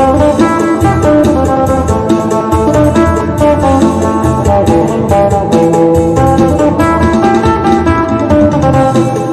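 Isan phin, a Thai plucked lute, played fast in a lam sing melody, with quick picked notes over a steady low bass.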